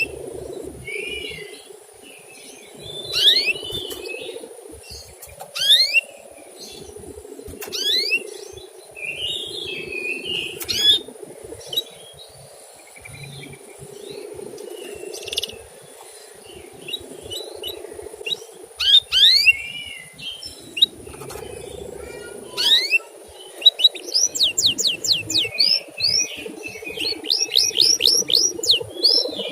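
Canary singing in bursts of quick rising chirps and chattering phrases, ending in a fast run of repeated rising notes over the last few seconds.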